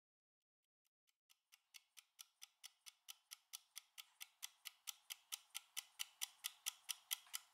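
Mechanical clockwork kitchen timer ticking fast, about four ticks a second, as it counts down its final seconds. The ticking fades in from silence about a second in and grows steadily louder.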